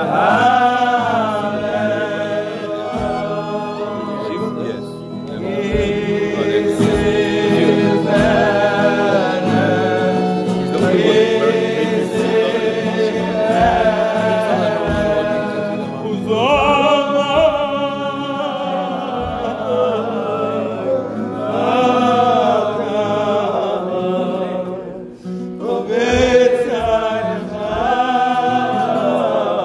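Group of voices singing a slow melody together, with long held, gliding notes and a brief breath between phrases near the end.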